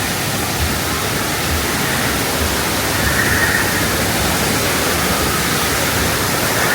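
Steady rushing of falling water, an even full hiss with no breaks.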